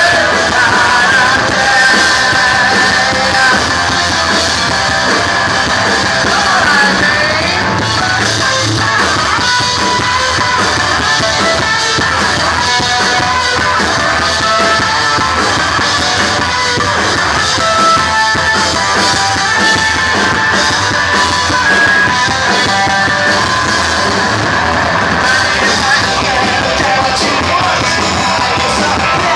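A live punk rock band playing loud and without a break, a singer's voice over guitar and drums, heard from within the audience.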